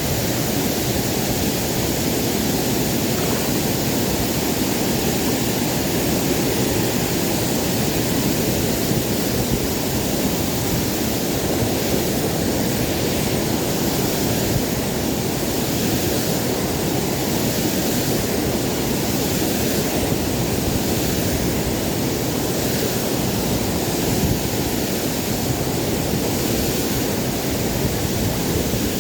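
Waterfall rushing with a steady, unbroken noise.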